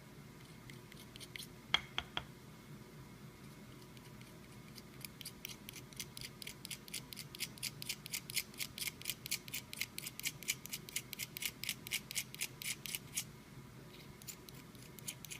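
X-Acto knife blade chipping the factory clear coat off the chrome section of a BMW shift knob: a couple of sharp clicks, then a fast run of crisp scraping ticks, about five a second, that stops a little before the end.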